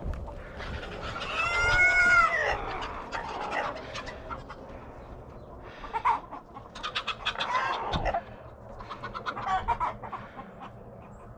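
Chickens clucking and squawking, with one loud drawn-out call about a second and a half in, then scattered short calls.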